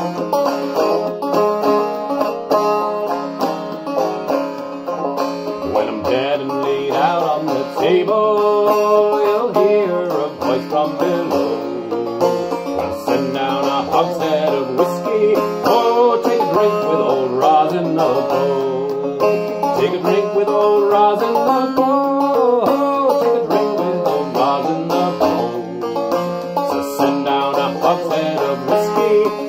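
Clawhammer banjo on a long-neck Vega Tubaphone banjo: a steady, driving run of plucked and brushed notes through a tune. A man sings a verse over it.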